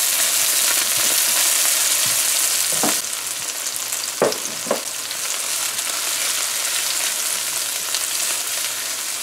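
Onions, scallions and celery sizzling in hot oil in a frying pan while being stirred with a silicone spatula. The steady high hiss eases a little about three seconds in, with a few brief scrapes from the stirring.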